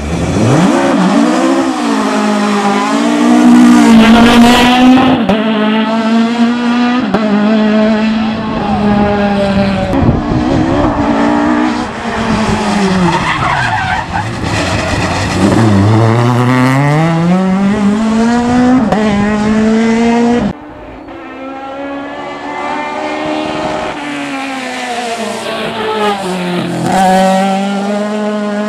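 Naturally aspirated Millington four-cylinder race engine of a Ford Escort Mk2 at full throttle, its note climbing and dropping again and again through gear changes, falling low about halfway through as the car slows, then pulling hard again. About two-thirds of the way in the sound suddenly becomes quieter and carries on revving.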